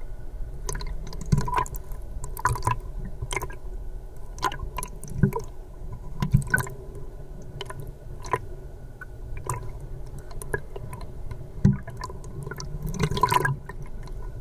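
Muffled underwater sound of moving water heard by a submerged camera: a steady low rumble with scattered sharp clicks and pops, and a busier patch of pops near the end.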